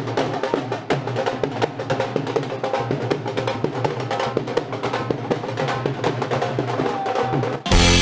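Wedding-procession drumming: a dhol beaten in a steady, driving rhythm with some pitched instruments behind it. Just before the end it cuts abruptly to louder band music.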